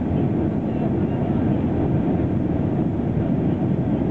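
Steady low rumble of an airliner cabin on approach to land: engine and airflow noise heard from inside the cabin, with no breaks or changes.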